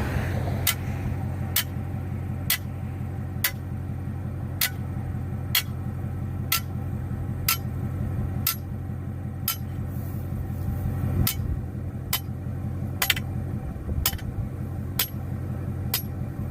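Evenly paced sharp strikes, about one a second, from a 16-pound sledgehammer, over a steady low engine hum.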